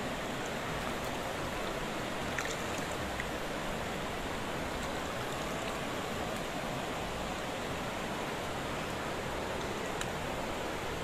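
Steady rain falling, an even hiss with a few faint ticks of drops.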